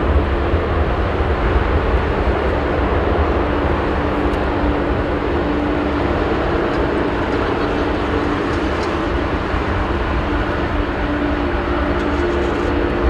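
Boeing 787-9 jet engines at takeoff thrust as the airliner accelerates down the runway: a loud, steady rumble with a faint hum.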